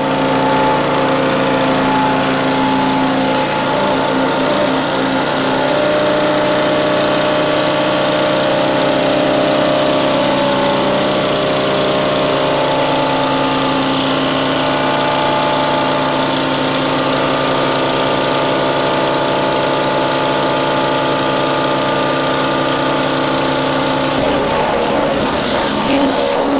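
Small gasoline engine of a pressure washer running steadily under load, over the hiss of water spraying from the spinning nozzles of a 16.5-inch rotary surface cleaner pushed across wooden deck boards.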